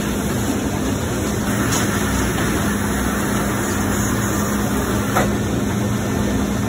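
Muller Martini perfect binding line running, its Astro counter stacker delivering stacks of bound books: a loud, steady mechanical drone with a constant low hum, and a sharp click about five seconds in.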